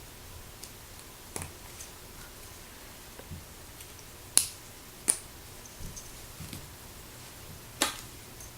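Plastic Lego pieces being handled and snapped together: a few sharp clicks, two of them less than a second apart midway and another near the end, with fainter ticks between.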